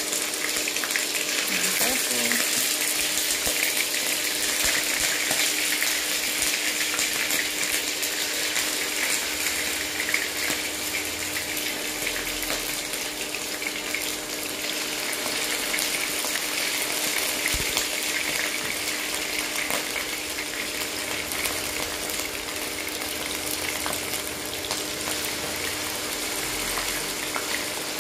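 Chicken pieces frying in hot olive oil in a nonstick wok: a steady sizzle with fine crackling and spitting, over a faint steady hum.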